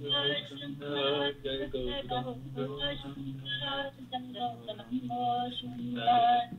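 Voices singing a devotional kirtan chant in drawn-out melodic phrases over a steady low drone, heard through thin video-call audio.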